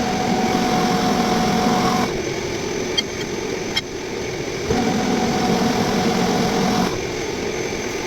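Metal lathe running, turning a large steel roller with a carbide tool. The cut grows louder twice for about two seconds each time, with a steady whine, and there are a few sharp ticks.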